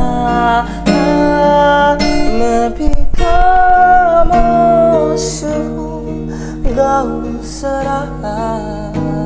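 A man singing long, drawn-out notes in Hindi over his own strummed acoustic guitar chords. The loudest held note comes about three seconds in.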